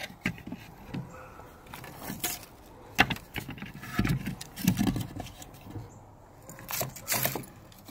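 Old nail-studded wooden boards being turned over and shifted: scattered light knocks and scrapes of wood against wood and the deck.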